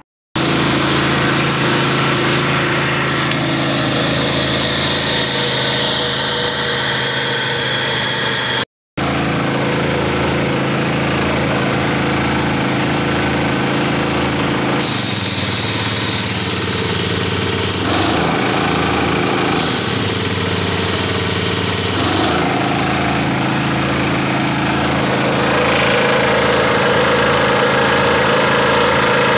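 Honda GX160 single-cylinder four-stroke engine running steadily on its freshly cleaned carburetor, driving the air compressor pump. The sound drops out for a moment about nine seconds in, and a high hiss comes in twice for a few seconds in the second half.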